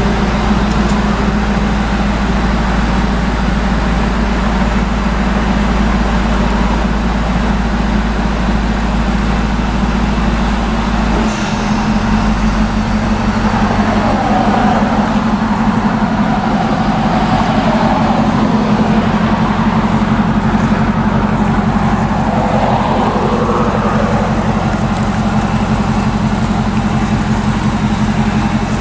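A 2002 Ford SVT Lightning's supercharged 5.4-litre V8 running steadily after an induction and fuel-system cleaning; its low note shifts about eleven seconds in.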